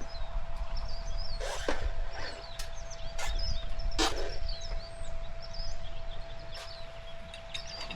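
Small birds chirping again and again, with a few sharp knocks and a steady low rumble underneath.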